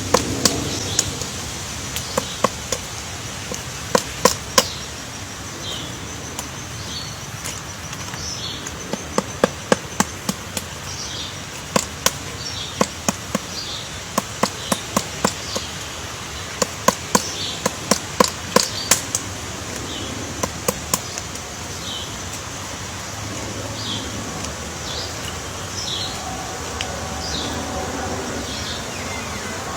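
Woodpecker pecking into wood: sharp, irregular taps, often in quick runs of two to five, with pauses of a second or more between runs.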